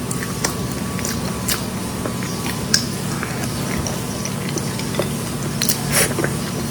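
Close-miked eating sounds: chewing and biting, with scattered sharp crackles and clicks over a steady low hum.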